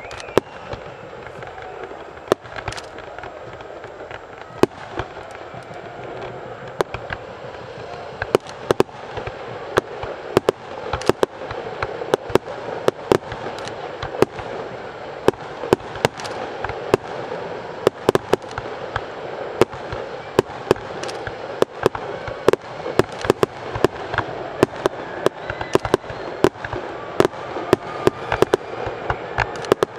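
Fireworks display: sharp bangs and crackling shell bursts over a steady noisy background, few at first and coming thick and fast from about a third of the way in.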